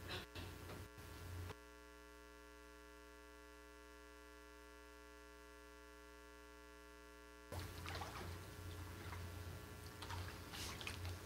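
Faint water sloshing and dripping in a church baptistry as someone moves in it, over a steady electrical hum. In the middle the water sounds stop for about six seconds and only the hum is left.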